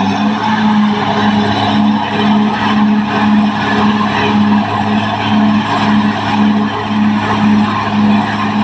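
Caterpillar D6R XL crawler bulldozer working: its diesel engine runs steadily under load, with the grinding and squealing of the steel tracks. A low throb pulses about twice a second.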